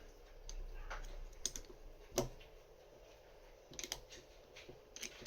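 Scattered light clicks and taps of small metal parts of a LaGard 2200 lock being handled while it is taken apart, the sharpest click about two seconds in and a quick run of clicks near four seconds.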